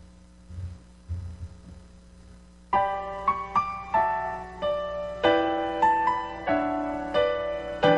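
Piano introduction to a song starting about a third of the way in: struck notes and chords that ring and decay, in an even rhythm. Before it, two soft low thumps in near quiet.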